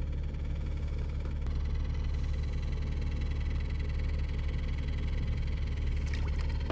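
A steady low mechanical drone, like an engine idling, holding an even pitch throughout.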